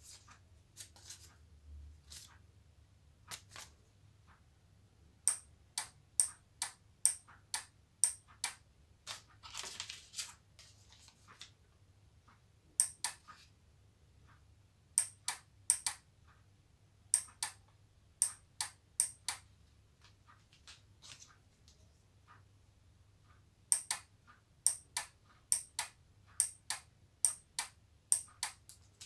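Small relay clicking on and off in quick pairs, switched by a photocell sensor as sheets of coloured paper are passed over it, in runs of clicks with pauses between. Paper rustles briefly near the middle.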